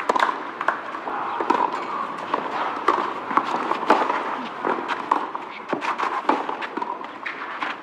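Tennis match on a clay court: irregular sharp knocks and clicks over a steady low murmur.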